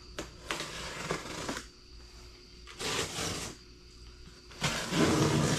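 Cardboard shipping box being handled and opened: rustling and scraping of cardboard and paper in three bursts, the last and loudest near the end.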